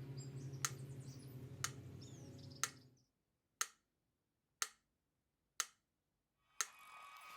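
Faint, steady ticking, one sharp tick about once a second like a clock. A low background hum under it fades out about three seconds in, leaving only the ticks, and comes back near the end.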